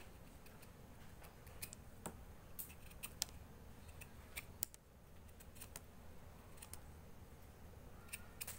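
Kitchen knife cutting and scraping the bark of an avocado branch by hand, a faint run of short, irregular scrapes and clicks.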